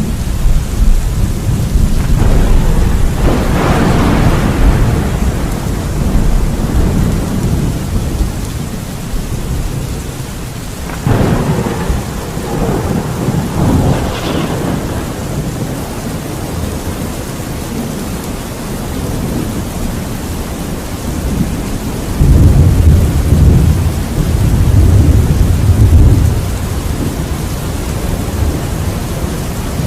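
Thunderstorm: steady rain falling throughout, with thunder cracking about three seconds in and again about eleven seconds in. A deep, low rumble of thunder rolls in over the last third.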